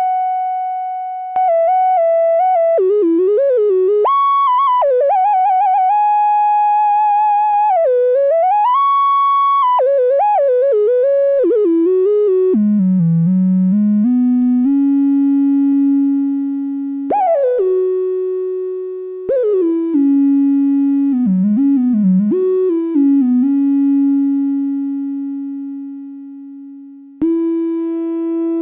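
DIY analogue monophonic synthesizer (Ad-vantage 03M) playing a single-note lead line. Notes slide into one another, some are held with vibrato, and the line drops into a lower register about halfway through. There is a light touch of added effects for depth.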